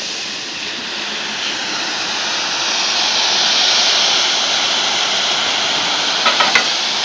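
Steady rushing hiss from a small submerged arc welding head and its flux feed running along a steel plate, growing a little louder about three seconds in. Three short sharp clicks come near the end.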